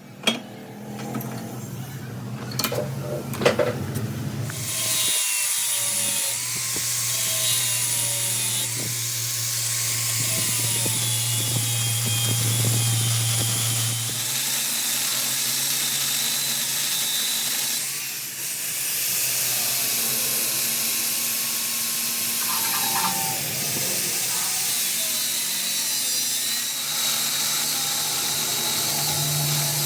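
A power tool starts after a few clicks and knocks about four seconds in, then runs steadily on metal with a loud hiss and a slowly wavering whine, dipping briefly past the middle. It is part of machining a new square drive for a broken impact wrench spindle.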